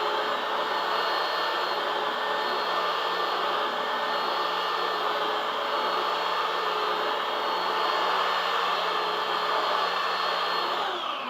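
Electric sander running steadily with a motor whine, switched off near the end so that its pitch slides down as it spins to a stop.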